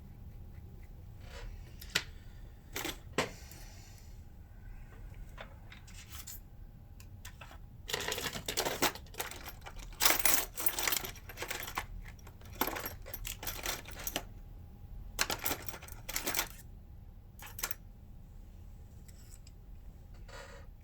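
Small metal repair tools and phone parts clicking and tapping against a hard work surface. A few single clicks come first, then clusters of rapid clicks from about 8 to 17 seconds in.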